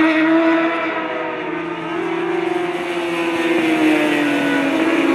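A group of 600cc superstock racing motorcycles running hard at high revs. Their engine note sags about a second and a half in, then climbs steadily again as they pick up throttle.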